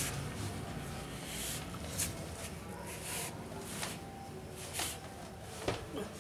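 Handling noise: a sleeve brushing and rustling against the phone's microphone in short, irregular hissy bursts over a low rumble.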